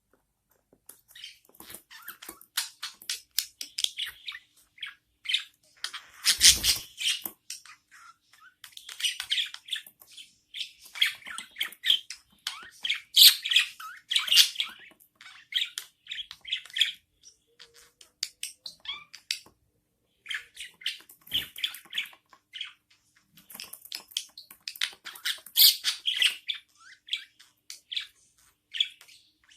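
Budgerigar chicks cheeping and squawking in rapid short calls while their mother feeds them, the loud begging cries of nestlings at feeding time. A brief louder noise cuts in about six seconds in.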